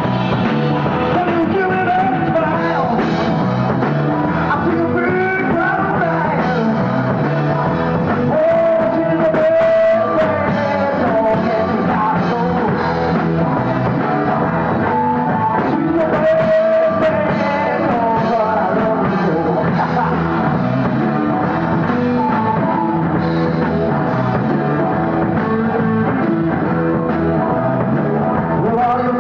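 Rock band playing live, with singing over the band and long held vocal notes.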